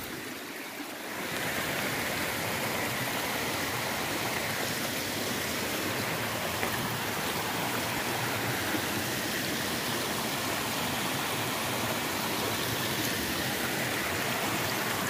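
Small mountain stream rushing and splashing over boulders in little cascades: a steady wash of water that swells up about a second in.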